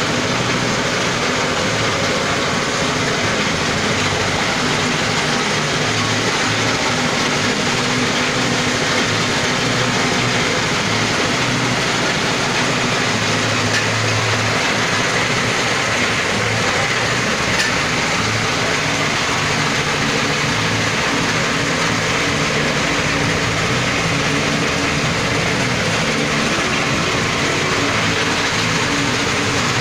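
Small single-cylinder petrol engine running steadily, driving a belt-driven dry coffee husking machine, with a continuous mechanical noise from the huller.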